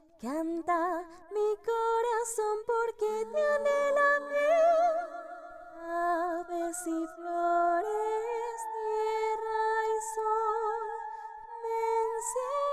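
Background music: a slow song in which a woman sings long, held notes with a marked vibrato.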